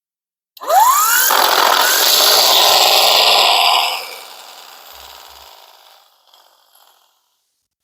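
12 V electric impact wrench running free: its motor spins up with a rising whine, runs steadily for about three seconds, then winds down and fades away over the next few seconds.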